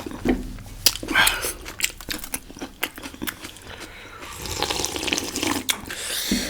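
Close-miked eating sounds: wet chewing and slurping of momo, with many sharp little clicks.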